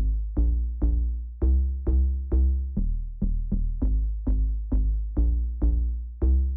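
Electronic background music with a steady beat of deep bass notes, about two to three a second.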